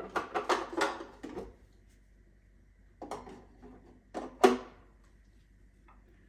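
Jars and containers knocking and clinking as they are set down on refrigerator shelves: a quick run of knocks at the start, then a few more after a pause, with one sharper knock being the loudest.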